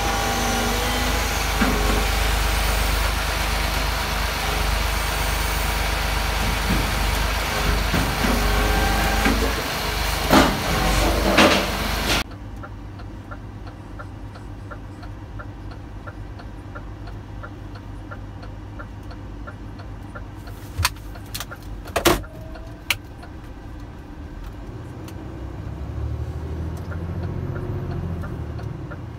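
Garbage truck engine running hard to drive its hydraulic loader crane as it lifts an underground refuse container, with several clanks about 10 to 12 seconds in. The sound then drops to the truck idling as heard inside the cab, with a steady ticking of about two ticks a second typical of a turn indicator and a few sharp clicks, and the engine rumbling louder as the truck pulls away near the end.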